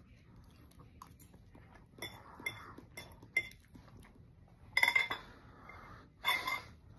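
Fork clinking and scraping on a plate as food is picked up: several light taps, then two louder scrapes with a brief ringing tone in the second half.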